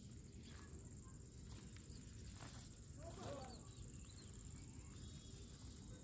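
Faint rural outdoor ambience: a steady high-pitched insect drone over low wind rumble on the microphone, with a few faint bird chirps and a brief call about three seconds in.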